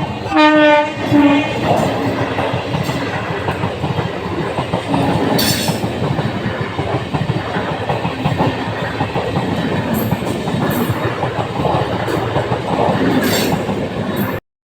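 Local train horn sounding in a few short blasts during the first second or so, then the train running along the track with a steady rumble and wheel clatter.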